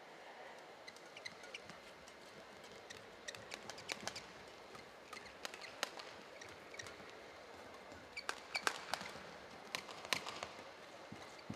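Badminton rally: sharp racket strikes on the shuttlecock, closer together in the second half, and short squeaks of court shoes on the mat, over a low steady arena background.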